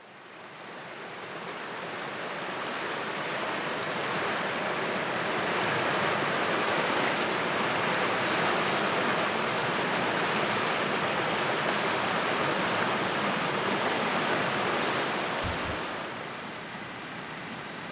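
The Venetikos river rushing in shallow rapids over a stony bed: a steady rush of water that fades in over the first few seconds and drops somewhat near the end.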